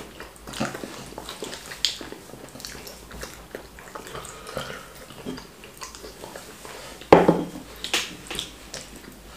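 Close-up eating sounds of someone eating wheat fufu with ogbono soup: wet chewing and mouth smacks, with small clicks and clinks scattered throughout. One louder, fuller burst comes about seven seconds in.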